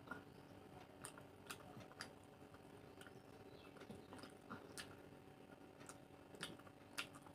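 Faint, close-miked eating sounds: chewing and small wet mouth clicks as rice and curry are eaten by hand, scattered irregularly over a faint steady hum.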